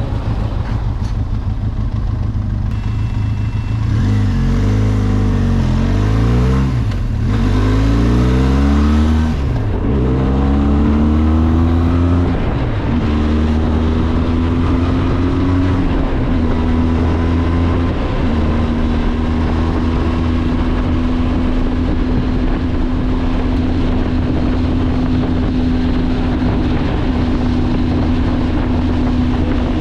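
Benelli TRK 502X parallel-twin motorcycle engine accelerating through several gears, its pitch climbing and dropping back at each shift. From about thirteen seconds in it holds a steady note at cruising speed.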